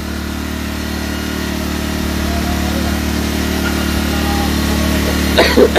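Generator engine on a fishing boat running steadily with an even hum. A brief shout near the end.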